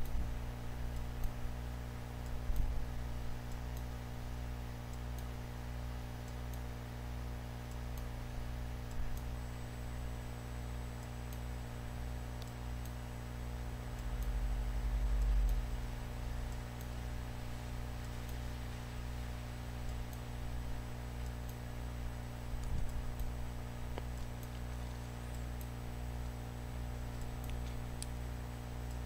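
Steady low electrical hum with a few faint, scattered clicks and a brief low rumble about halfway through.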